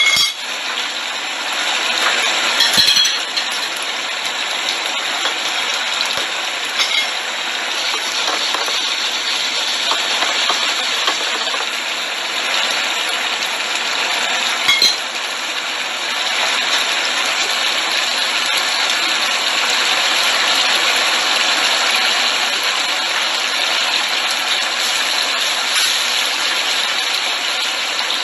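Thick three-cup sauce bubbling and sizzling steadily around chicken wings in a stainless frying pan over high heat as it reduces. Two sharp clinks come about three seconds in and again around fifteen seconds.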